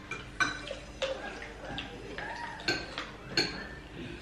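Metal spoons clinking and scraping against ceramic plates and bowls while eating, several sharp clinks spread over a few seconds.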